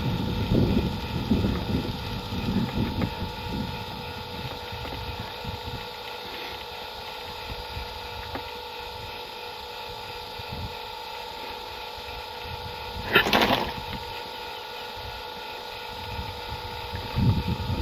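Gusty wind rumbling on the microphone, strongest in the first few seconds and again at the end, over a steady faint hum. One short, sharp noisy burst about 13 seconds in.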